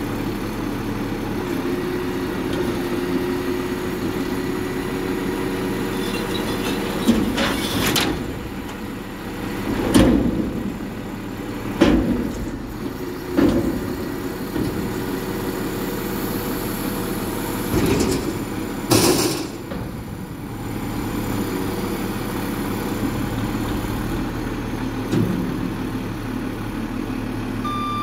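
Front-loader garbage truck's diesel engine running under hydraulic load while its forks hold a steel bulk bin tipped over the hopper. A string of about seven loud metal bangs through the middle as the bin is shaken empty, then the arms lower it.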